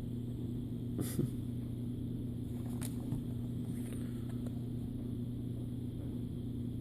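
Steady low hum with an even background hiss, with a few faint clicks about a second in and again near three seconds.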